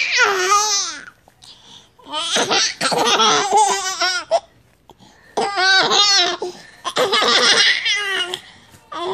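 A baby laughing in four or five bouts of high-pitched, rapid giggles, with short pauses between them.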